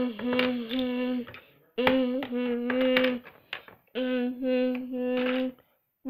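A child's voice humming or singing wordless held notes on one steady pitch, in three phrases of about a second and a half each with short breaks between.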